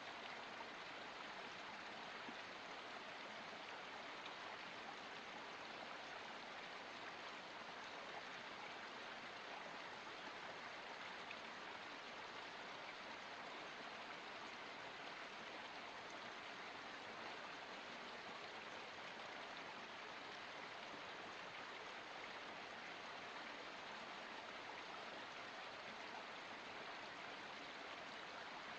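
Forest spring water flowing steadily, an even, unbroken rush of running water.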